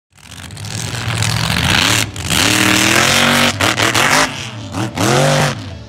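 Mega truck's engine revving hard in four bursts, its pitch climbing and holding, then dropping each time the throttle is briefly lifted.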